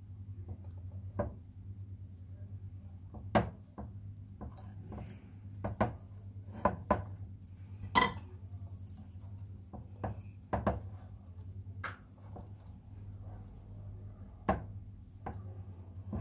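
Utensils and dishes clinking and knocking irregularly against a cooking pot as food is layered into it, over a steady low hum.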